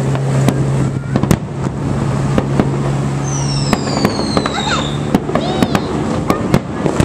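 Fireworks display: aerial shells bursting in a string of sharp bangs and crackles. A high whistle falls in pitch between about three and five seconds in, and a steady low hum runs under the first half.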